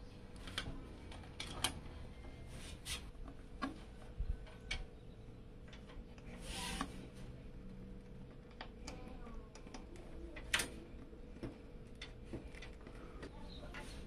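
Handling noise of PC cables being routed and their connectors pushed onto motherboard headers inside a steel PC case: scattered light clicks and rubbing, with a short scrape about halfway through and a sharper click a few seconds later. A faint steady hum runs underneath.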